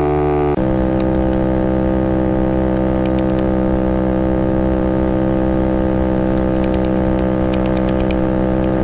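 Maddog 50cc scooter's GY6 139QMB single-cylinder four-stroke engine, built up to 90cc, at full throttle. Its revs climb and level off about half a second in, then hold steady at high rpm while the automatic transmission carries the scooter up to its top speed of about 47 mph on the stock CDI. Wind rushes underneath.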